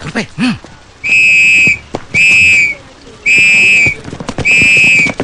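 A whistle blown in four shrill, steady blasts, each a little over half a second long and about a second apart.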